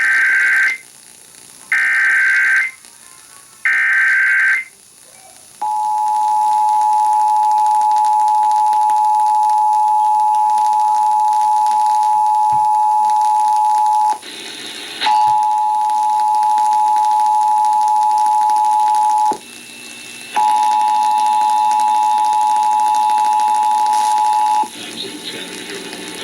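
Emergency Alert System test alert: three short screeching SAME digital header bursts, then the steady two-tone attention signal (853 and 960 Hz together), which breaks off twice briefly. A voice begins the test message near the end.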